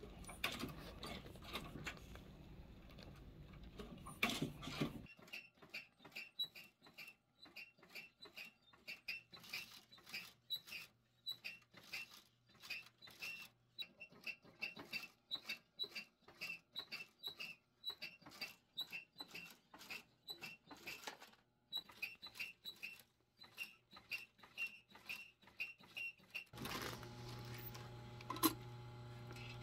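Industrial leather sewing machine with a wheel presser foot stitching slowly through leather: an even run of small clicks, one per stitch. A low motor hum sounds under it for the first few seconds and comes back near the end.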